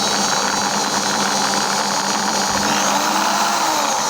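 Corded 450-watt Skil electric drill running free with a step cone drill bit in its chuck: a steady, loud motor whine whose speed wavers briefly about three seconds in.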